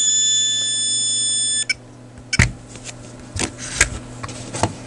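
Beckman Industrial HD-153 multimeter's audible voltage indicator beeping, a steady high tone that cuts off suddenly under two seconds in. A few clicks and knocks follow as the meter and its test leads are handled.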